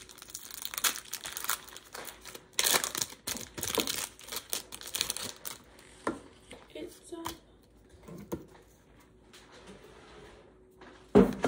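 A foil trading-card booster pack wrapper crinkling and tearing as it is opened, in dense bursts for about the first six seconds, then fewer, fainter rustles.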